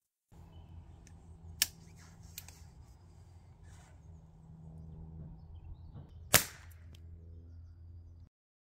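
One suppressed shot from a Chiappa Little Badger .22 Long Rifle single-shot rifle firing subsonic RWS cartridges: a single sharp crack about six seconds in, preceded by a couple of small clicks.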